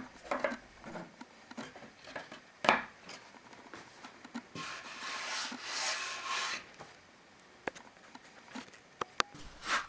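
Wooden bandsaw parts being handled: a knock, then a couple of seconds of wood rubbing and sliding, then a few light clicks.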